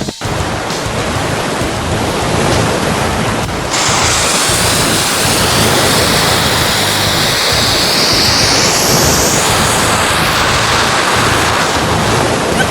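Loud, steady rushing noise like wind or surf, with a whoosh that rises in pitch around the middle.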